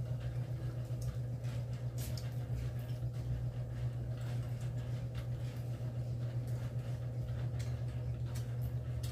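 Steady low mechanical hum, with a few faint clicks of hands and a spoon on plates as people eat.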